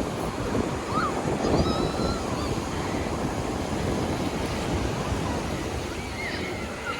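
Ocean surf washing, with wind buffeting the microphone. A few faint high chirps sound over it.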